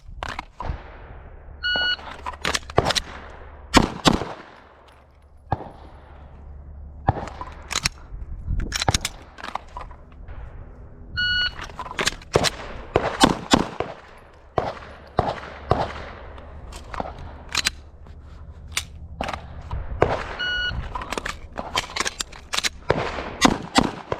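A shot timer's start beep, then a rapid string of pistol shots; this happens three times, with a few more shots between strings.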